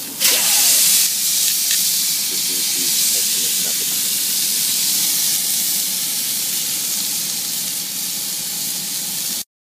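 Steak searing in a hot cast iron skillet on a grill: a loud, steady sizzle. It jumps louder just after the start as the turned steak meets the pan, then holds until it cuts off suddenly near the end.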